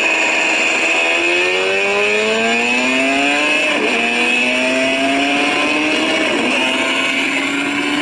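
Racing motorcycle engine in onboard track footage, played through a tablet's small speaker, accelerating hard with its pitch climbing, dropping at a gear change about four seconds in and again near the end.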